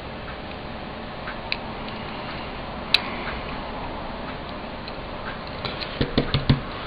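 Small clicks of pliers on the leads of a three-pin transistor as they are bent for fitting, over a steady background hiss. A sharper click comes about 3 seconds in, and a quick run of light knocks near the end as tools and hands come down on the work mat.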